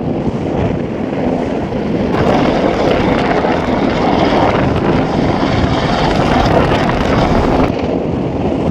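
Rescue helicopter flying close by, its rotor and engine noise mixed with heavy wind buffeting the microphone; louder from about two seconds in until shortly before the end.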